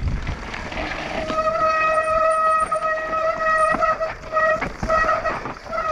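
Mountain bike disc brakes squealing: a steady high squeal for a couple of seconds, then several short squeals as the brakes are pulled on and off. Tyres rumble over the rough trail throughout.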